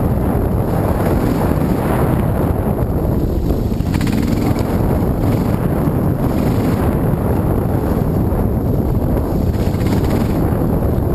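Dirt bike engine running at trail speed, buried under heavy wind buffeting on a helmet-mounted microphone; steady throughout.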